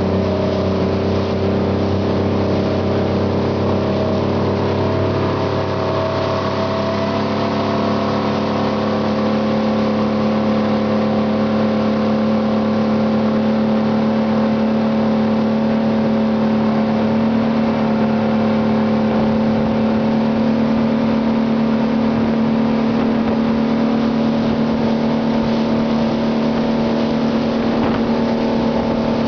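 A 200-horsepower speedboat engine running steadily at cruising speed, with the rush of water churning along the hull. The engine note shifts slightly about seven seconds in and then holds.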